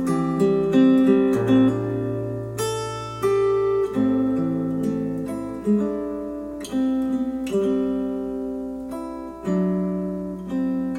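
Acoustic guitar music, chords strummed and left to ring, a new chord every second or so, played back through hi-fi bookshelf speakers.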